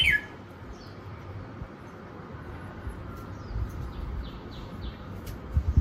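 Small birds chirping in short falling calls, with a quick run of three or four chirps about halfway through, over a low rumbling background with a couple of dull thumps near the end.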